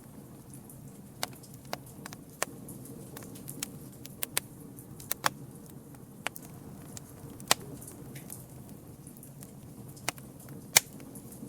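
Campfire of burning wood crackling: irregular sharp pops and snaps, one or two a second, over a steady low rush of flame, with the loudest pop near the end.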